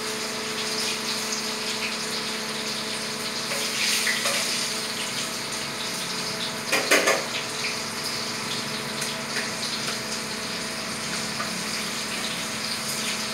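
Food frying in oil in a pan on a gas stove: a steady sizzling hiss with a low hum underneath, and a short clatter about seven seconds in.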